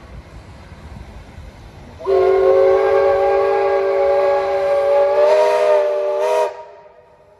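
Steam locomotive whistle blowing one long blast of about four and a half seconds, sounded as the engine approaches the station. Several notes sound together, with a slight waver near the end before it cuts off sharply.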